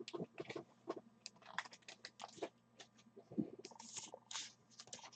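Faint, irregular light clicks and crackles, a few a second, with a soft thump about three and a half seconds in.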